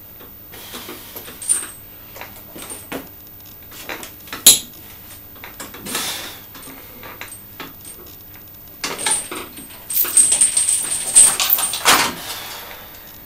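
Lifting chains hung on a barbell clinking and rattling as the bar is pressed, with a sharp clank about four seconds in and a longer, louder jangle from about nine to twelve seconds.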